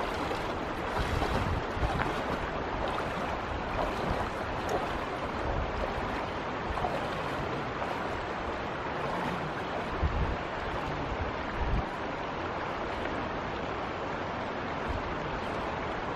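Steady rush of flowing river water, with wind buffeting the microphone and two brief low thumps about ten and twelve seconds in.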